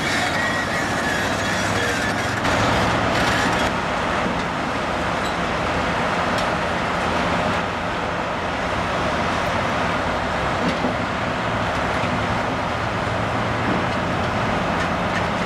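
Volvo tracked excavator's diesel engine running steadily under load as its demolition attachment works the building, with a few brief crunches of debris.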